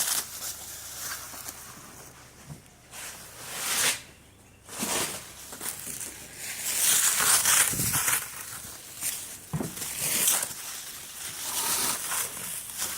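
Plastic wrapping being pulled and peeled off a large tool chest by hand, crinkling and rustling in irregular bursts, louder in the second half.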